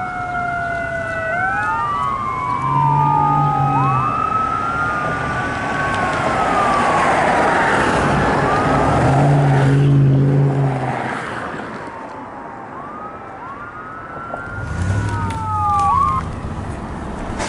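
Fire engine and ambulance sirens wailing together, several rising and falling tones overlapping, fading about twelve seconds in and briefly returning near the end. Three deep horn blasts of about a second each, likely the fire engine's air horn, sound near the start, in the middle and near the end.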